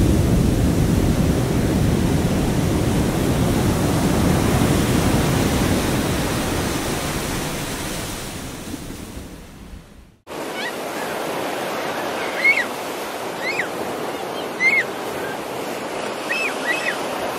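Heavy ocean surf breaking, a deep steady wash that fades out about ten seconds in. After a brief gap comes lighter sea wash with a gull calling five or so times in short high cries.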